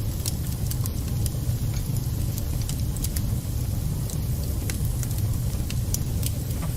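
Wood fire burning in a fireplace: a steady low rumble of flames with scattered, irregular sharp crackles and pops from the burning wood.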